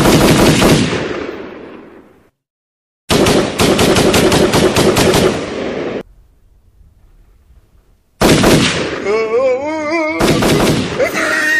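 Machine-gun fire sound effect in three rapid bursts. The first fades out over the opening two seconds, the second runs about three seconds from three seconds in, and the third starts near the end with a wavering, warbling sound over it.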